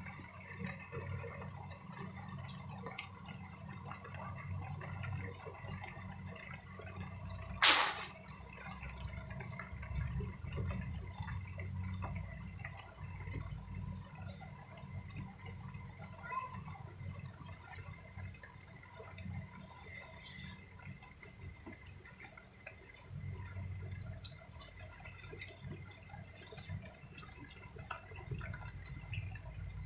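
Steady rain with scattered drips and a low rumble underneath. One loud sharp click cuts through about eight seconds in.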